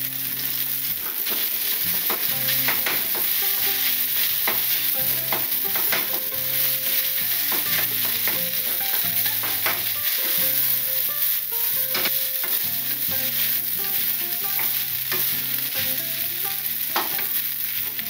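Rice frying in ketchup in a frying pan, sizzling steadily while a wooden spatula stirs and breaks it up, with frequent light clicks and scrapes of the spatula against the pan.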